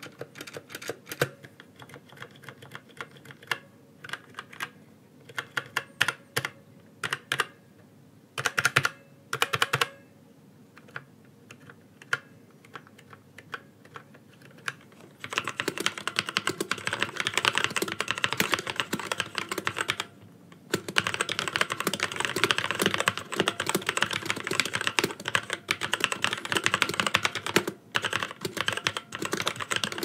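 Magicforce 68-key mechanical keyboards being typed on. For about the first half come scattered single keystrokes on the Kailh Brown tactile-switch board. From about halfway there is fast continuous typing on the Kailh Red linear-switch board, with a short pause about two-thirds of the way in.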